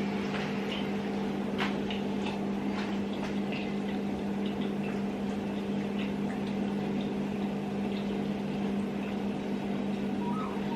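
Banana dumplings frying in hot oil: a steady sizzle with scattered small crackles, over a constant low hum.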